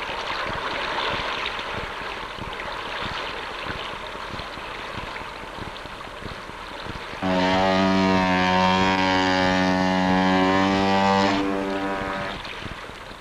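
Rushing, churning water for the first several seconds, slowly fading. Then a ship's horn sounds one long, steady blast of about four seconds, the loudest sound here, and dies away.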